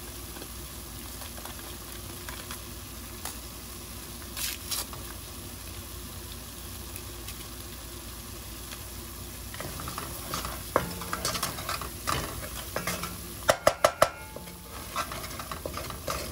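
Seasonings sizzling in a hot pot, a steady hiss. From about ten seconds in a spoon scrapes and stirs through them, with a few sharp knocks around two-thirds of the way through.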